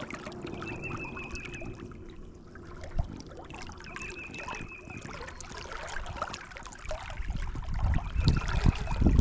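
Creek water trickling steadily. A high, wavering call sounds three times, about every three and a half seconds. Low rumbles and thumps come in the last two seconds.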